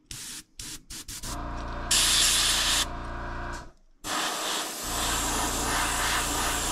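Airbrush spraying thinned paint at about 25 PSI: a few short puffs of air, then a steady hiss with a low hum underneath. The hiss is loudest for about a second around two seconds in, breaks off briefly near four seconds, then carries on steadily.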